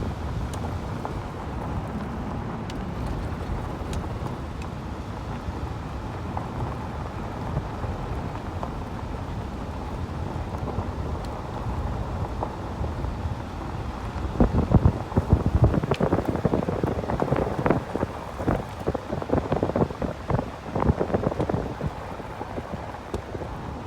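Wind buffeting the microphone: a steady low rumble, with heavier, irregular gusts from about halfway through.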